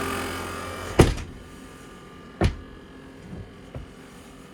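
A loud knock about a second in, and a second knock about a second and a half later, followed by two faint taps. A steady low hum in the background drops away at the first knock.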